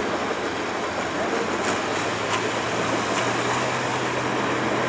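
International Harvester 1468's naturally aspirated V8 diesel idling steadily before a pull, its low hum firming up a little about two seconds in.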